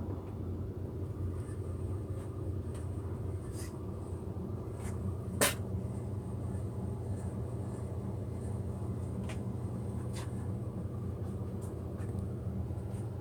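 Steady low mechanical hum, with a few light clicks and one sharper click about five and a half seconds in.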